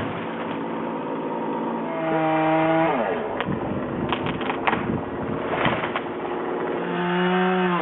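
Gas chainsaw running, revved up to a high, steady pitch twice, about two seconds in and near the end, each time falling back toward idle. A few sharp clicks come between the two revs.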